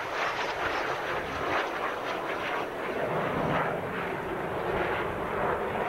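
Jet aircraft flying past: a steady rushing jet-engine noise that rises and falls a little in loudness.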